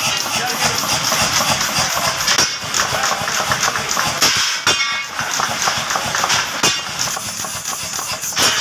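50 kg mechanical power hammer running, its ram striking rapidly on a hand-held cutter to cut into a steel strip, with a few louder ringing blows among the steady hammering.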